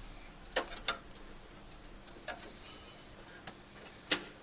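A handful of sharp, separate clicks and taps of a screwdriver and screws against a desktop computer's metal case as parts are screwed back in, the loudest near the end.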